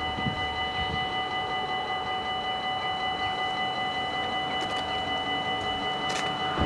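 Dutch level-crossing warning bells ringing in a steady, rapid rhythm of bright metallic strokes: the crossing is activated, warning that a train is coming.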